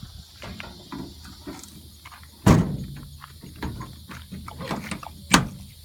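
Metal tool box drawers and tools being handled: small clicks and rattles, with two sharp metallic bangs, one about two and a half seconds in and a second near the end.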